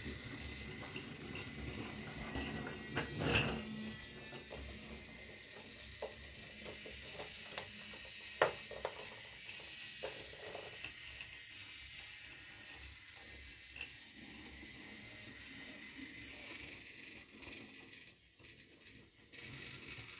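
Small toy-train mechanism: a faint steady whir with scattered irregular clicks and knocks, the loudest a sharp knock near the middle.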